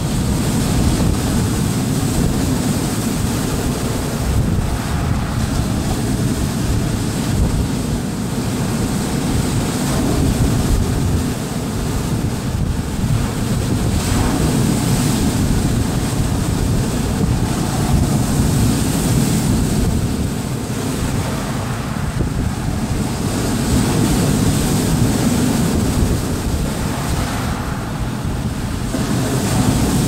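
Large wind-driven waves on Lake Superior breaking and washing over a rocky shore, swelling and easing every few seconds, with strong wind buffeting the microphone.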